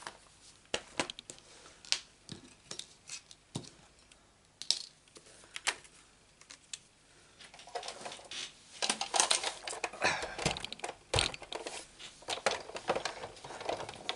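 Light clicks and taps of plastic stamp and die cases being handled, then a run of clatter with two heavy knocks about ten and eleven seconds in as a Sizzix Big Shot die-cutting machine is put down on the work surface.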